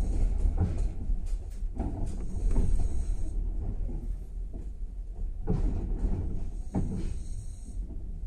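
Passenger train coach running at speed, heard from inside the carriage: a steady low rumble of wheels on the track with a hiss, and a few sharp knocks and clatters spaced irregularly through it.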